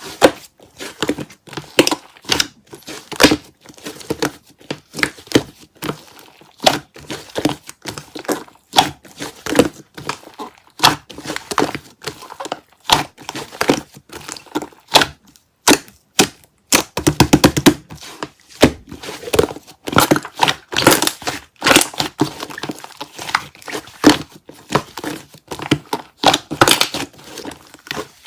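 Hands squishing, stretching and folding slime, making irregular sticky clicks and air-bubble pops, with a fast run of crackling pops a little past halfway through.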